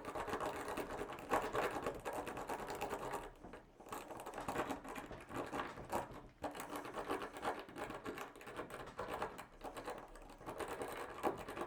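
Rake pick scraping rapidly in and out of a padlock's pin-tumbler keyway, a fast rattle of metal clicks as the pins bounce under very light tension, pausing briefly twice.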